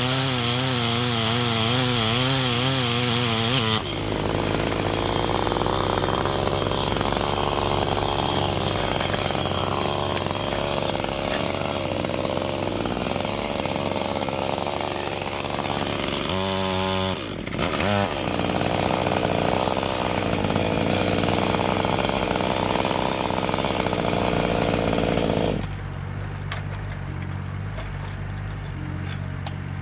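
Electric chainsaw running and cutting into acacia wood, its motor pitch wavering under load in the first few seconds. It dips and spins back up briefly about 17 seconds in, and goes quieter about 26 seconds in.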